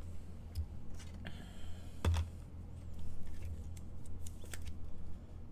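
Trading cards and a clear plastic card holder being handled: a handful of light clicks and rustles, the sharpest about two seconds in, over a steady low hum.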